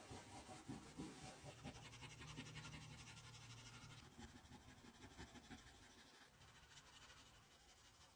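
Near silence with faint scratching and rubbing, and a faint low hum from about one and a half to four seconds in.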